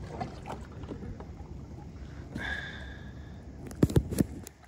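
A knife cutting fish into cubes on a board on a kayak: a quick run of sharp knocks about four seconds in, over a low steady rumble, with a brief high tone about halfway through.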